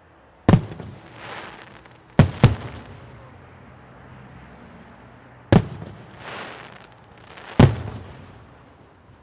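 Fireworks display shells bursting: five loud bangs. Two come in quick succession about two seconds in, and each bang trails off.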